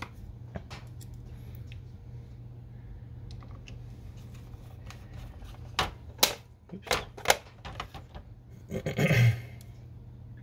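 Scattered light clicks and taps of small screws and plastic printer parts being handled in an inkjet printhead carriage, with a cluster of sharper clicks about six to seven seconds in and a louder rustling clatter near the end. A steady low hum runs underneath.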